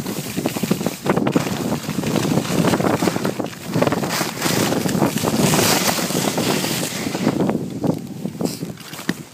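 Skis scraping and rattling over tracked snow during a downhill run, with wind buffeting the microphone, loudest from about four to six seconds in.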